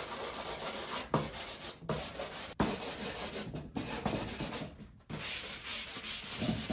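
Soft pastel stick scratching and rubbing across paper in quick back-and-forth scribbling strokes, with a brief pause about five seconds in.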